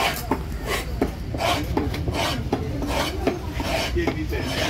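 A knife cutting through a large fish's neck behind the gills to take off the head: short rasping strokes, about two a second, over a low background rumble.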